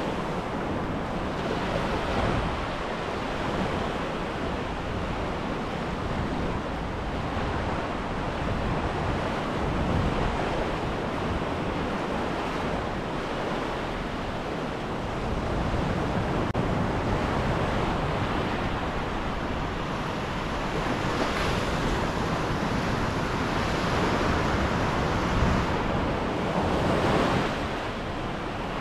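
Mediterranean surf washing onto a sandy beach: a continuous rush of breaking waves that swells and ebbs, with a few louder breakers in the second half.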